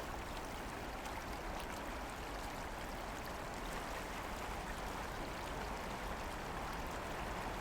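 Steady running-water sound, like a stream, an even rushing noise that does not change.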